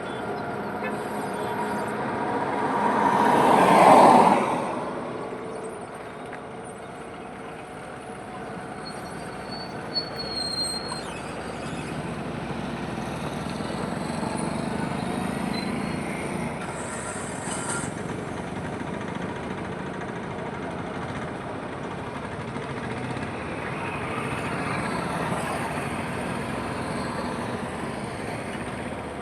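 Highway traffic passing close by. One vehicle swells to a loud pass about four seconds in and fades quickly, and gentler passes follow over a steady traffic hum.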